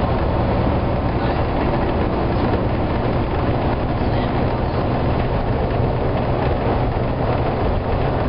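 Volvo B9TL double-decker bus's six-cylinder diesel engine working hard at speed, heard from inside the passenger saloon: a steady engine drone under road and wind noise.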